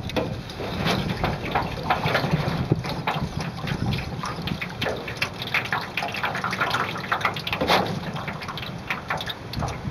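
Water splashing and lapping irregularly against the aluminum hull of a Grumman sailing canoe moving under sail, over a steady low rumble of wind on the microphone.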